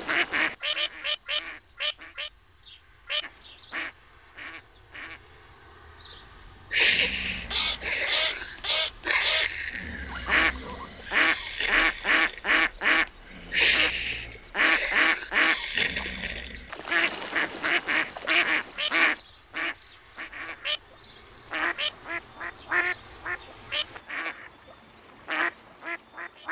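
Duck quacking over and over in short, separate calls. From about 7 to 17 seconds in the quacks come louder and closer together, then thin out again.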